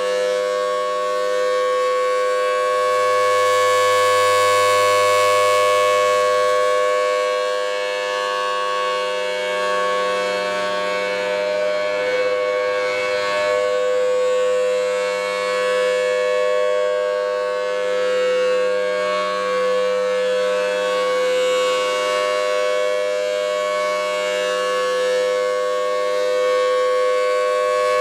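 Federal Signal Thunderbolt 1000T outdoor tornado siren sounding a steady, unbroken tone, swelling and fading every several seconds as its rotating head turns.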